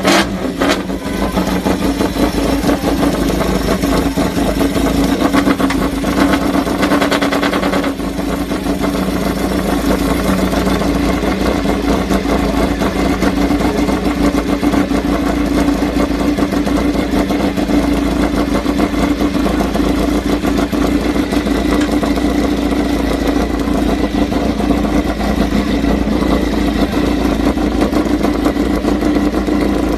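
Honda RC213V race motorcycle's V4 engine running at a steady idle, its pitch holding level throughout with only a slight change about eight seconds in.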